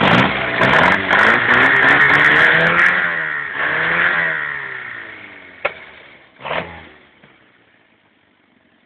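Small petrol engine revved up and back down a couple of times, then dying away to a stop, with two sharp pops as it winds down.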